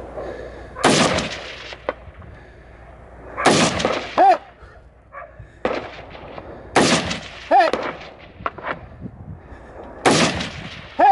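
Semi-automatic rifle shots fired one at a time, about every three seconds, four in all. Three of them are followed under a second later by a second sharp crack with a brief ringing tone.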